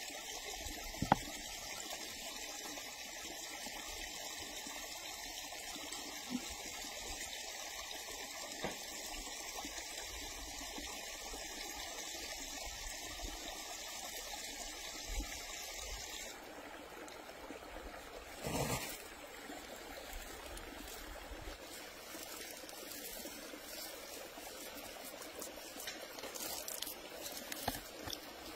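Faint, steady trickle of running water, with a few soft knocks from hands handling meat on a wooden board.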